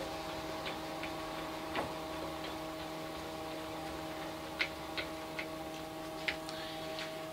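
Milling machine table being wound slowly along under a dial indicator: light, irregular ticks and clicks from the table feed, a few sharper ones past the middle, over a steady faint hum.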